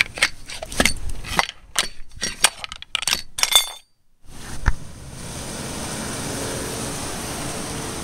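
A quick run of sharp metallic clinks and taps as a metal tool knocks against an alternator and its cast aluminium mounting bracket. A moment of near silence follows, then a single click and a steady low background hum.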